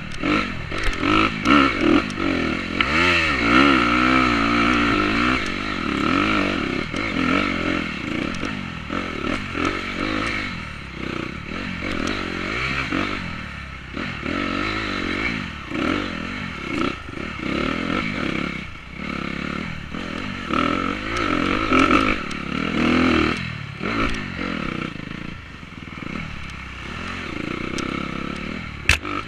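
Dirt bike engine running hard on a woods trail, its revs rising and falling again and again as the rider opens and closes the throttle through the turns. A sharp knock comes near the end.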